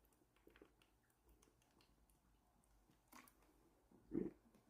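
Faint chewing and small wet mouth clicks, with one slightly louder short mouth sound about four seconds in.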